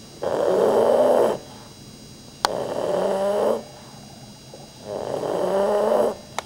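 Pug snoring loudly: three long, rasping snores, each about a second long and a little over two seconds apart. The second opens with a sharp click.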